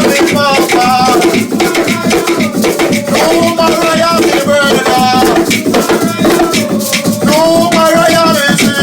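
Live group drumming in a steady, busy rhythm, with voices singing a held, wavering chant over it.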